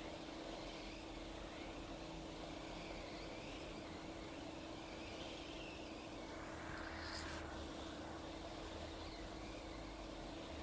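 Hot-air rework station blowing steadily with a constant hum, reflowing a new NAND flash chip onto an iPhone 6 logic board; a brief click about seven seconds in.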